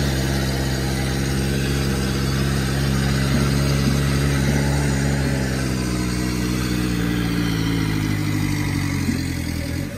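Off-road vehicle's engine held at steady revs, straining to drive out of wet, muddy ground, with its pitch sagging slightly near the end; the vehicle is stuck and not getting free.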